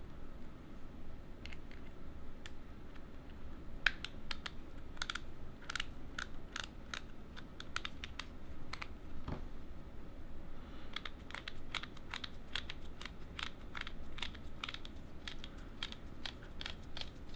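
Small sharp clicks and ticks of the parts of a Neutrik XLR connector being handled and fitted together, scattered at first, then coming at about three a second in the second half.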